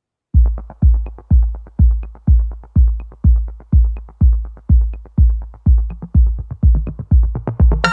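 Background electronic music: a steady, heavy kick-drum beat, about two and a half beats a second, with light ticks above it, and a synth chord joining near the end.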